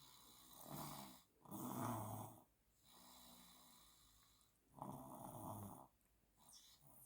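A 20-month-old toddler snoring in sleep, a rasping snore with each breath: louder snores about a second in, at about two seconds and at about five seconds, with softer breaths between.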